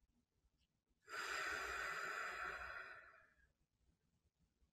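A woman taking one slow, audible breath lasting about two seconds, beginning about a second in and fading away, paced as part of a count-of-four box-breathing exercise.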